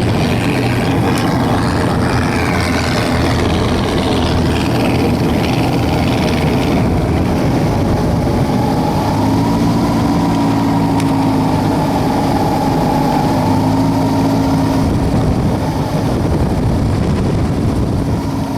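WAR Corsair replica homebuilt aircraft's engine and propeller running steadily at taxi. A steady pitched hum rises out of the noise about halfway through and fades again a few seconds later.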